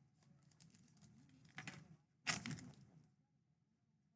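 Foil trading card pack being crinkled and torn open, with faint clicks of cards being handled; the loudest crinkling comes about two and a half seconds in.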